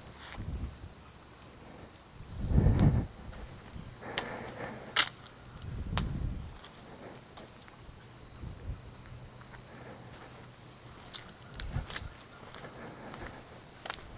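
Steady high-pitched chorus of insects trilling without a break. A few low thumps and sharp clicks sound over it, the loudest thump about three seconds in.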